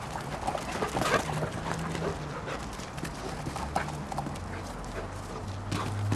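Two large Labradors wrestling, with irregular thuds and scuffles of paws and bodies and a few short dog sounds. A low steady hum comes in over the last second or two.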